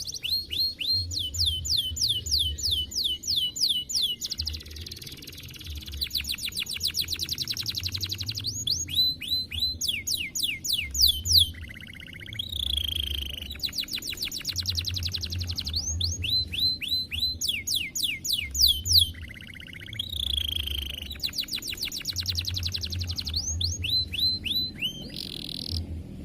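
Domestic canary singing a long, continuous song of fast trills: runs of quickly repeated downward-sweeping high notes that change pattern every second or two, with a couple of brief breaks.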